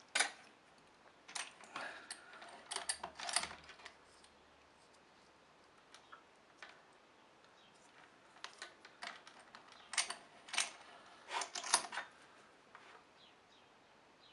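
Hands handling wire and tools at a bench: light clicks, taps and rattles in short clusters, near the start, from about one and a half to three and a half seconds in, and again around ten to twelve seconds, with quiet gaps between.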